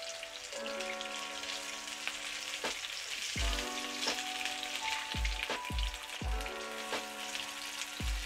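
Crumbed flathead fillet pieces sizzling steadily in hot oil in a frying pan as they are turned with tongs.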